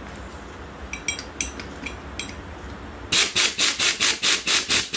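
Pneumatic impact wrench driving a bolt home on a golf cart's front spindle assembly, hammering in a fast string of about nine short bursts starting about three seconds in. Before it, a few light metallic clinks of tools and parts being handled.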